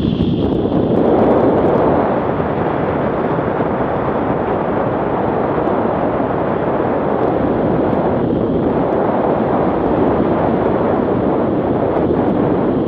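Steady rush of wind buffeting the camera's microphone during a descent under an open parachute canopy.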